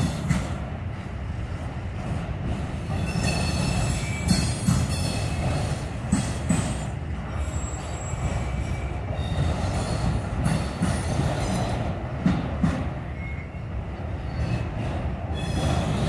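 Freight train's autorack cars rolling past: a steady rumble of steel wheels on rail, with high wheel squeal coming and going and a few sharp knocks.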